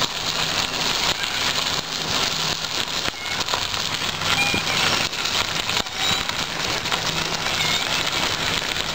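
Bicycle tyres rolling over a gravel path with wind on the microphone: a steady noisy rush with a fine crackle.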